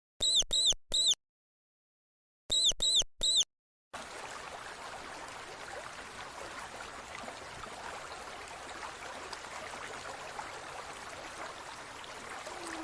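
A small animal's short, high-pitched chirps: two identical bursts of three, a second or so apart, with dead silence between them. From about four seconds in, a steady sound of running water takes over.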